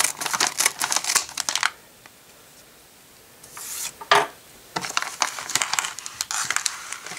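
Scissors snipping through a thin plastic LEGO polybag in a quick run of cuts for the first second and a half or so. After a short pause, the crinkling plastic bag is handled and pulled open.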